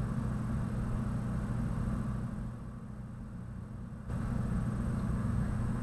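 Steady low hum under a background hiss of room noise. The sound dips slightly in the middle and jumps back up abruptly about four seconds in.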